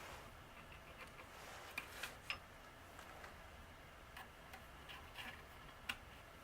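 Faint, irregular light clicks and taps over a low steady hiss, a few sharper ones about two seconds in and again near the end.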